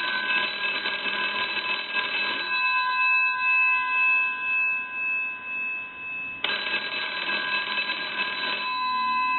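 GPO P&T 606 rotary desk telephone's bells ringing, almost like a firehouse bell: one ring of about two and a half seconds at the start, then a second ring about four seconds later. The bell tone lingers and fades between the two rings.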